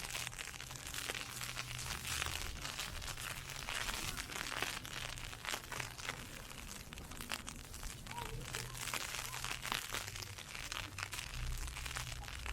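Ice pellets hitting an umbrella overhead in a dense, irregular crackle, with a low rumble coming and going underneath.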